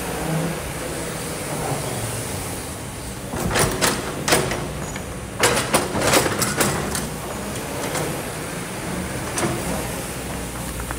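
Kobelco hydraulic excavator's diesel engine running steadily, with two bursts of clattering knocks and scrapes about three and five and a half seconds in as the steel bucket digs into sand and stones.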